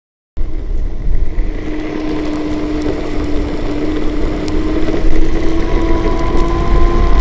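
Direct-drive electric skateboard under way: a steady motor whine that rises slowly in pitch as the board gathers speed, over a loud low rumble. It starts suddenly just after the beginning.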